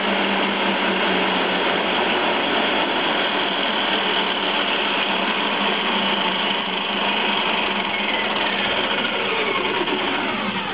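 The oscillator's 2 kW electric motor, driving a double-row chain and a 10:1 gear reducer, running at speed and being slowed down on its speed regulator: a steady mechanical whirr whose pitch falls over the last few seconds.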